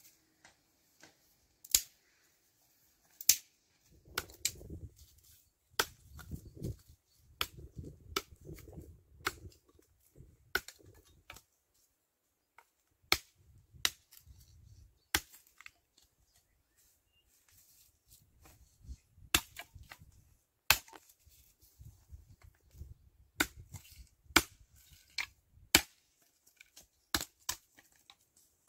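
Axe chopping dry branches on a wooden chopping stump: a long, irregular series of sharp cracks, with softer handling noise between the strikes.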